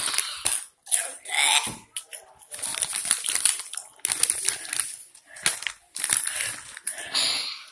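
A Barcel Turbos Flamas plastic chip bag crinkling as a hand rummages in it, with chips being crunched.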